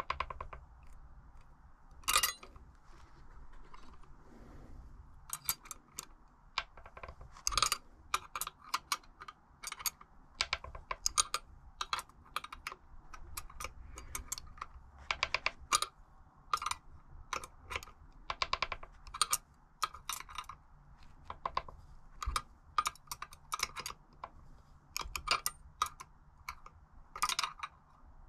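Rapid, irregular light clicks and taps of small tools and metal parts being handled during bike bearing work, sparse at first and then almost continuous, with a few louder knocks. A faint low hum runs underneath.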